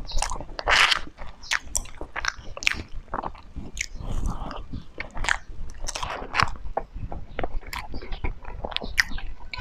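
Close-miked eating of cake: bites and chewing with many short, irregular mouth clicks and smacks.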